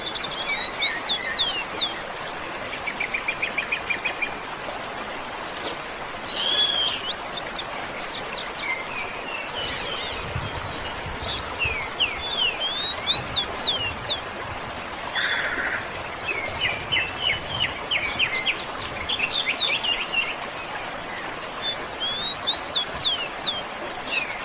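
Several birds singing and calling, with many short sweeping whistles, chirps and a few rapid trills, over the steady rush of a waterfall.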